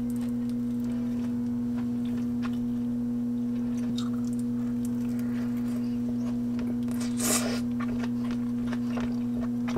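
A steady held humming tone throughout, with a few faint clicks of a fork against a ceramic plate and a brief chewing or slurping noise about seven seconds in.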